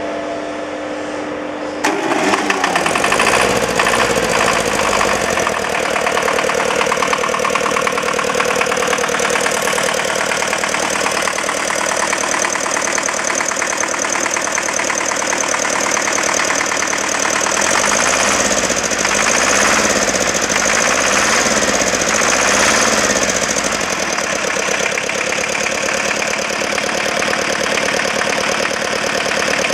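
Restored Deutz 410 engine starting up: a steady whine for about two seconds, then the engine fires and runs with a steady rhythmic beat. Between about 18 and 23 seconds in, its pitch rises and falls several times as it is revved.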